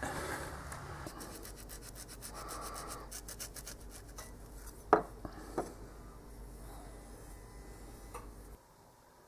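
Knife scraping and cutting through the fur of a small animal pelt, with a quick run of scraping strokes about three seconds in and a sharp knock near the middle. At the very start, hands rub the pelt against a wooden board.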